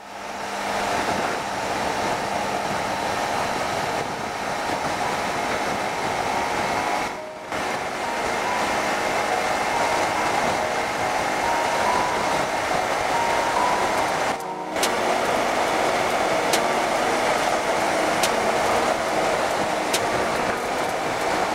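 Honda VTR250's 90-degree V-twin engine running at expressway speed, mixed with steady wind rush, heard from the rider's position on the bike. The sound dips briefly twice.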